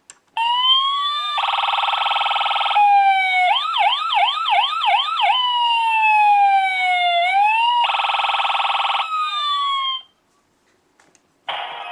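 Toy police helicopter's electronic siren sound effect through a small speaker: a rising wail, a buzzing horn tone, a fast yelp, a slow falling wail and a second buzz, cutting off about ten seconds in. A different electronic tune starts near the end.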